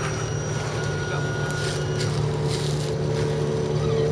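Electric motors and gearboxes of RC scale crawler trucks whining steadily as they climb a dirt bank, with a higher-pitched whine growing louder from about halfway.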